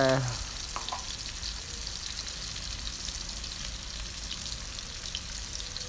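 Sliced hotdog, onion and garlic frying in oil and butter in a wide pan, a steady sizzle.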